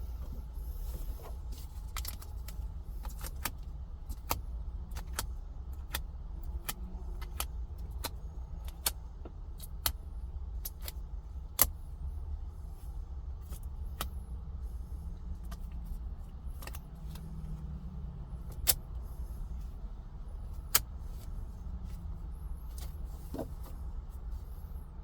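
Scattered sharp clicks and taps of a tempered-glass screen protector being handled and pressed against a truck's dashboard touchscreen, the loudest a little before halfway and twice more later on, over a steady low hum in the cab.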